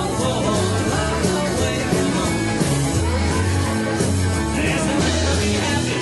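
Live rock and roll band playing at a steady loud level: held bass notes, drums with regular cymbal strokes, and a voice singing.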